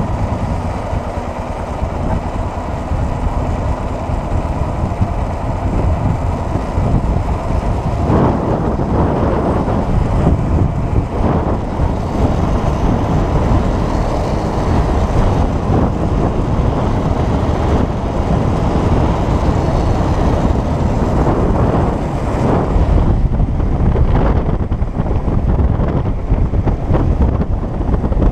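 Off-road motorcycle engine running during a ride, steady and loud throughout.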